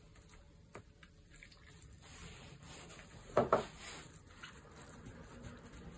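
Hot water poured in a short, quiet trickle from a thermos cap-cup into a cup of instant curry rice, starting about two seconds in, with a sharp knock of the cup or utensil partway through.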